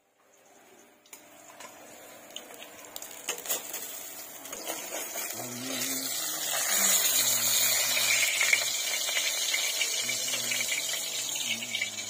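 Hot oil sizzling and crackling in a kadai (wok) of frying fish. It grows louder through the first half.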